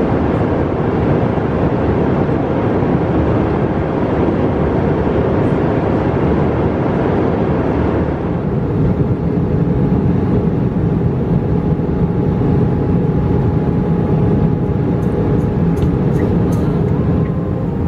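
Airbus A321 cabin noise in flight: a steady rushing hum of engines and airflow, heavy in the low end, whose tone shifts about eight seconds in.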